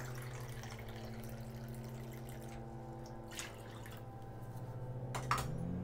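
Water trickling from the spigot of a Berkey gravity water filter into a small measuring cup, over a steady low hum. A few light clicks follow in the second half.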